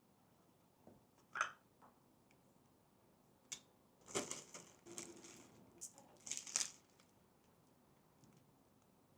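Handling noises from unpacking: a sharp click about a second and a half in, then short bursts of rustling and scraping around four to five and six to seven seconds in, like packaging being handled.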